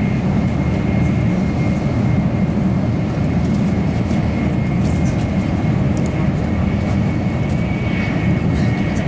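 Steady low mechanical hum of a Shinkansen bullet train, with a thin high-pitched whine held on one note and a few faint ticks.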